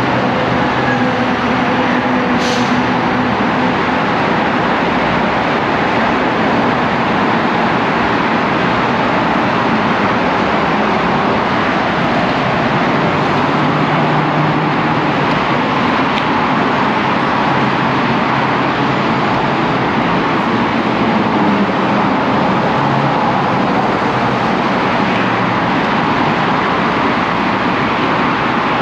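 Loud, steady roar of heavy freeway traffic around a light rail platform, with a short click about two and a half seconds in.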